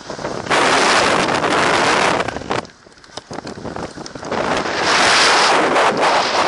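Storm-force wind in a mountain snowstorm buffeting an action camera's microphone: a loud gust, a sudden lull about three seconds in, then another loud gust.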